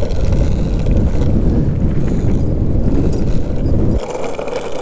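Skateboard wheels rumbling over asphalt at speed, with wind buffeting the microphone. The deep rumble drops away suddenly about four seconds in.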